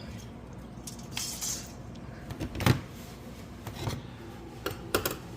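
Scattered metal clinks and knocks of hand tools and engine parts being handled while unbolting an engine. The loudest knock comes about halfway through, with a quick pair of clinks near the end.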